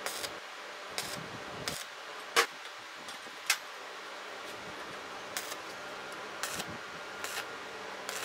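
Stick (arc) welding: short tack welds on a square steel tube, the arc sputtering in brief spells over a steady low hum. Two sharp clicks stand out, about two and a half and three and a half seconds in.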